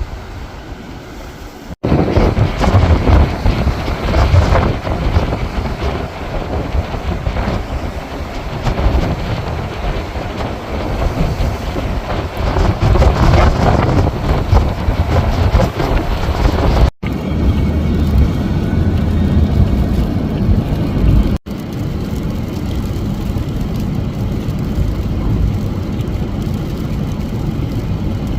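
Storm wind buffeting the microphone: a loud rushing with a heavy low rumble. It is broken by three abrupt cuts, about two seconds in, at about seventeen seconds and at about twenty-one seconds, and after the last cut it runs steadier.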